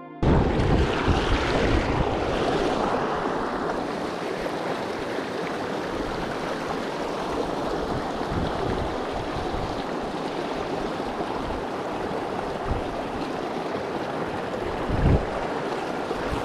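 Fast-flowing creek rushing over rocks: a steady hiss of moving water. Irregular low bumps on the microphone run through it, the loudest about fifteen seconds in.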